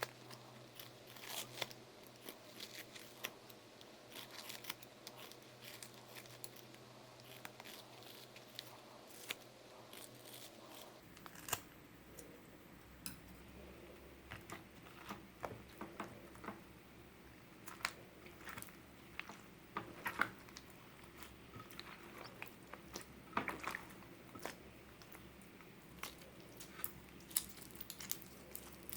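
Clear slime being squished and worked by hand, with scattered small clicks, pops and crackles throughout, a few louder pops now and then.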